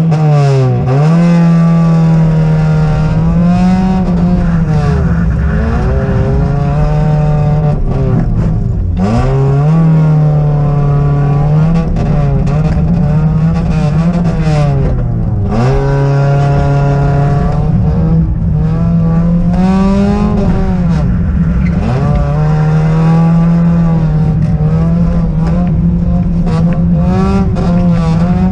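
Fiat Seicento's 900 cc four-cylinder engine heard from inside the cabin, revving hard through a slalom run. The pitch keeps climbing and falling as the driver accelerates, lifts and brakes between cones, with several deeper drops and fresh climbs.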